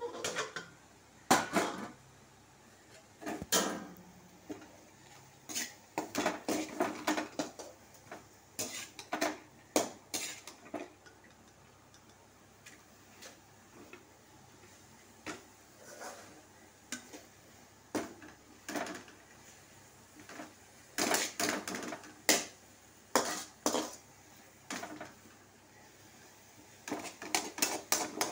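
Slotted metal spatula scraping and clinking against a metal kadai while stir-frying moringa leaves, in irregular bursts with short pauses between them.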